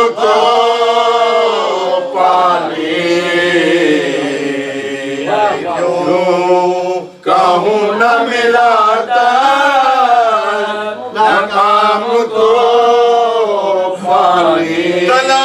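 A man chanting an unaccompanied Urdu noha, a Shia mourning lament, in long drawn-out lines that waver in pitch, with a brief break about seven seconds in.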